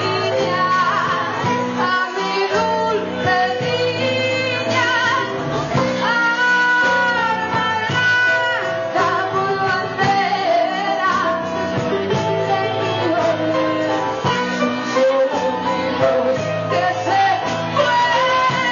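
Live band playing a song, a woman singing lead over electric guitars, bass and drums.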